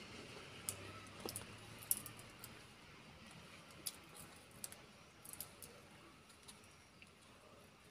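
Faint, irregular sharp clicks and taps, about ten of them, from a common myna's beak pecking at a small plastic lid held out to it.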